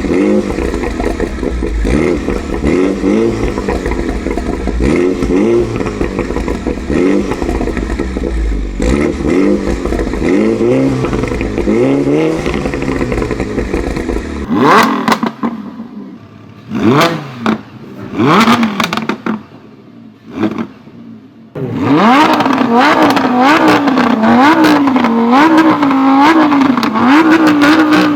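Car engines revved through performance exhausts, the exhaust crackling and popping as the revs drop. First a run of repeated revs over a deep rumble, then a few sharp blips with quiet gaps between, then quick revs up and down about once a second with steady crackling.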